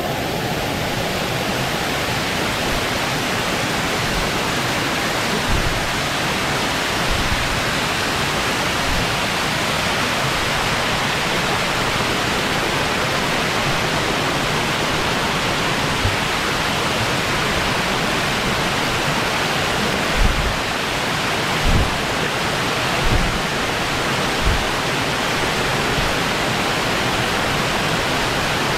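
A waterfall pouring over rock close by: a steady, loud rush of white water. A few short low thumps come in the second half.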